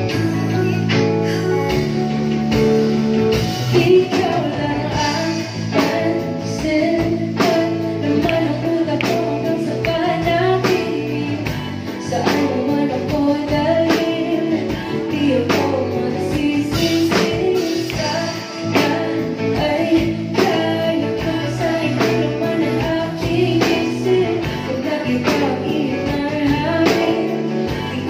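Live band performing a pop-rock song: a woman singing lead over electric guitar, bass guitar, keyboard and a steady drum-kit beat.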